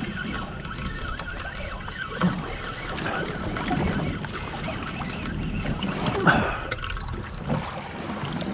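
Water sloshing and lapping against a small fiberglass boat's hull, with a couple of louder splashes about two and six seconds in.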